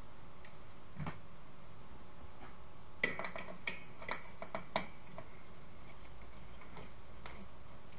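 Small metallic clicks and ticks of a stubby screwdriver working an awkwardly placed screw inside the camera's housing: one click about a second in, a quick cluster of clicks between about three and five seconds, and a couple more near the end, over steady background noise.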